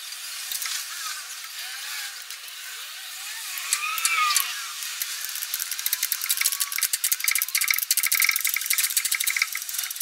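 Ratchet on a socket extension clicking quickly as it loosens a starter mounting bolt, busiest in the second half, with a few faint squeaks in the first half.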